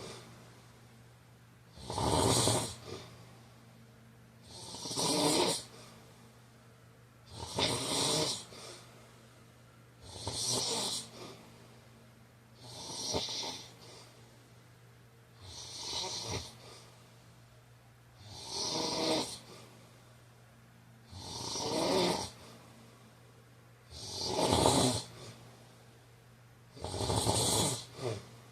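A man snoring steadily in an even rhythm, one snore about every three seconds, ten in all, each lasting about a second.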